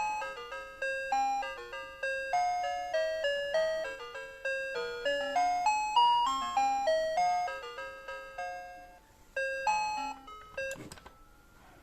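Citizen melody alarm clock playing its alarm melody, a quick run of bright chiming notes. The tune pauses briefly about nine seconds in, plays a few more notes, and stops. A short clatter follows near the end.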